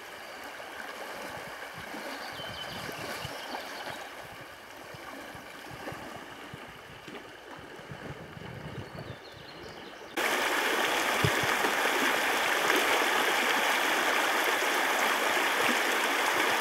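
River water rushing over shallow riffles, a steady noisy flow. About ten seconds in, the sound cuts suddenly to a louder, steadier rush.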